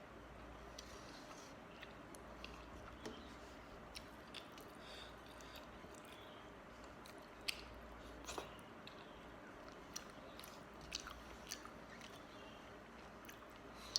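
A person chewing a soft, wet meal of water-soaked rice, with faint chewing and scattered short mouth clicks.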